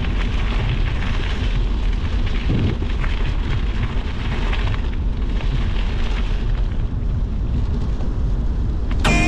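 Steady low rumble of wind buffeting an action camera's microphone while cycling.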